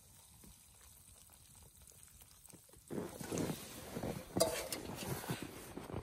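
Hot water pouring faintly from a kettle into a foam instant-noodle cup. About three seconds in, much louder irregular crunching and handling noises start, with a sharp click partway through, as the kettle is lifted away and set down in the snow.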